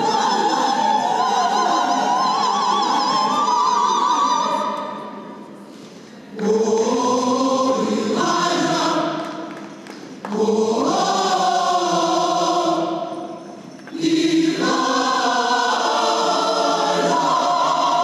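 Large mixed choir of men's and women's voices singing held chords. The phrases fade away and come back in strongly about six, ten and fourteen seconds in.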